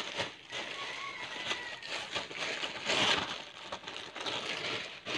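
Plastic bread bag crinkling and rustling as a slice of bread is taken out, loudest about three seconds in.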